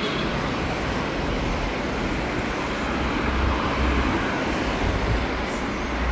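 Steady road traffic noise, with a low rumble that swells about halfway through.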